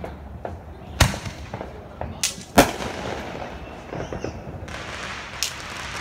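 Fireworks going off: a series of sharp bangs, about four main ones, the loudest about two and a half seconds in, followed by a trailing echo.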